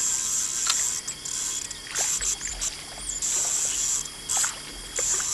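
Insects, crickets or cicadas, buzzing in a high, steady band that breaks off and starts again several times, with a few faint clicks.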